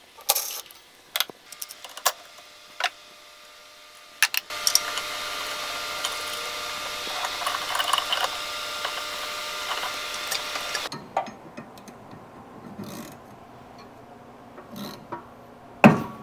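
Ratchet and socket working the recoil starter bolts on a snowmobile engine. There are a few sharp metal clicks, then a powered tool runs steadily for about six seconds and stops abruptly. Scattered ratchet clicks follow, with one loud knock near the end.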